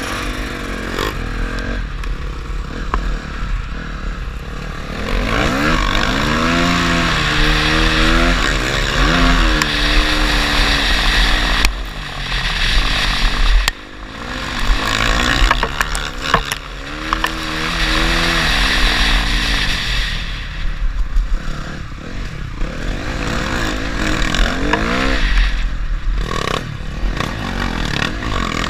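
Motocross bike engine being ridden hard on a dirt track, its pitch climbing and falling again and again as the throttle is opened and closed through the gears. It drops away sharply for a moment about 14 seconds in, then picks up again.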